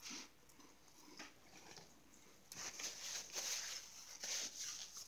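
Peanut butter crackers being bitten and chewed, with crunching in a run of irregular noisy bursts through the second half.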